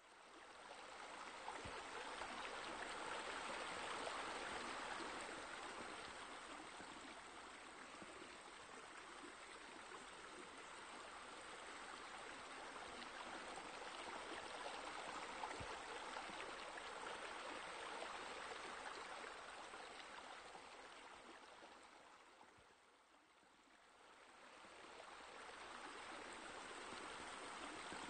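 Steady rush of running water, fading in at the start, dipping briefly near the end and swelling back.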